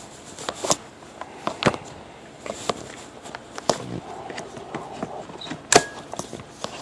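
Irregular clicks and knocks from the plastic of a Toshiba L655 laptop being handled, with its battery being put back in, the sharpest knock near the end.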